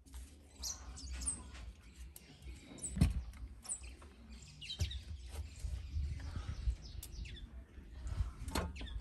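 Small birds chirping in short high calls, with rustling and a few sharp knocks as dry sticks are handled at a fire pit and a metal cooking pot is set onto the stones.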